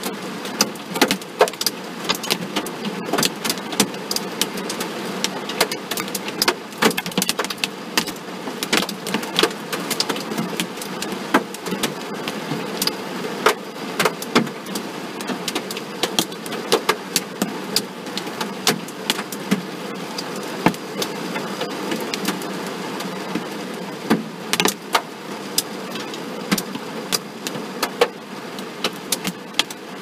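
Hail pelting a car's body: a steady rush of falling hail with many sharp, irregular hits on the metal.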